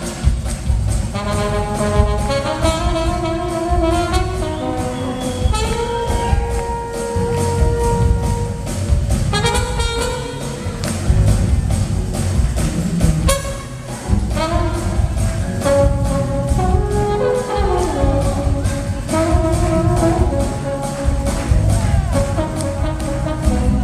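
Live soul band with a horn section: trumpet and saxophone play melody lines over a steady drum beat and bass.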